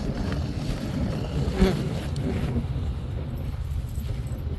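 Dog sled running over snow: a steady low rumble and hiss from the sled moving over the trail, with one sharp knock about a second and a half in.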